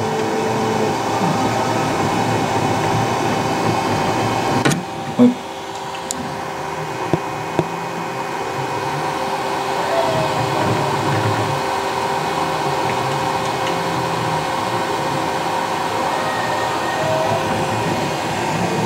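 Raise3D N1 3D printer running mid-print: a steady whir of its cooling fans, with faint short motor tones from the moving print head. A few clicks sound about five to eight seconds in.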